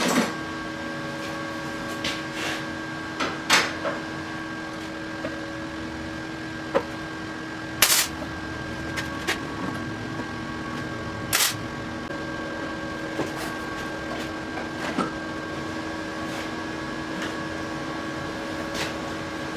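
Steady machine hum with a few fixed tones, broken by scattered clicks and knocks, three of them louder and spread through.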